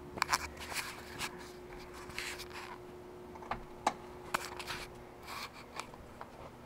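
Handling noise from the camera being moved and set in place: scattered rustles and sharp clicks, over a faint steady hum that stops about five seconds in.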